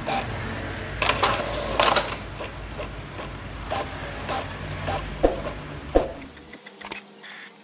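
Epson ink-tank inkjet printer printing a page: its mechanism runs with a steady low drone and a few sharp clicks, then stops about six seconds in as the printed sheet comes out.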